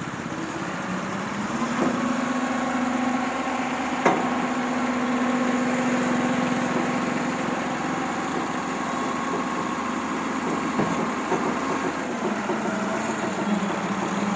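Engine of a construction machine running steadily, with a sharp click about four seconds in and another near eleven seconds.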